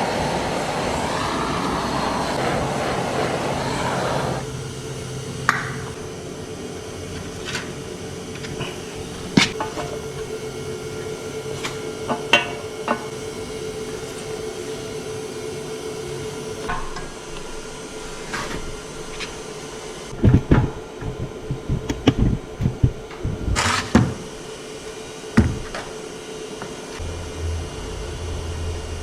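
A steady mechanical hum with scattered sharp clicks and knocks, and a run of low thumps about twenty seconds in, from tools and gear case parts being handled in a workshop. A louder, rushing noise stops about four seconds in.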